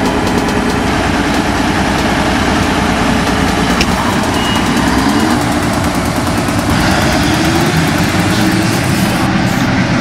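Claas Lexion 460 combine harvester running steadily while cutting and threshing wheat, its engine and machinery making a loud, continuous noise; around halfway through a tone rises in pitch as the machine speeds up.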